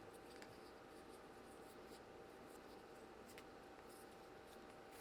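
Near silence: room tone with a faint steady hum and a few faint small ticks.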